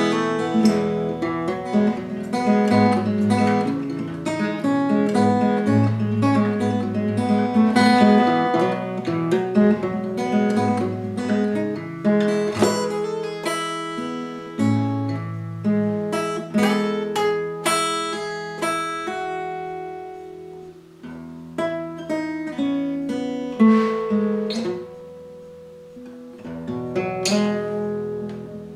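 Steel-string acoustic guitar, capoed, played fingerstyle: a busy picked melody over bass notes, thinning out after about twelve seconds into sparser ringing notes that grow quieter, with a few sharp accented notes in the second half.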